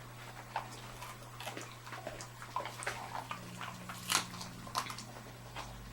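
Two dogs chewing treats: irregular wet crunches and clicks from their mouths.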